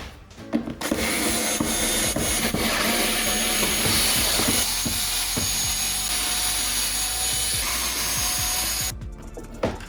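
A handheld power tool running steadily with a rough, grinding noise for about eight seconds, after a brief pause at the start, then stopping near the end.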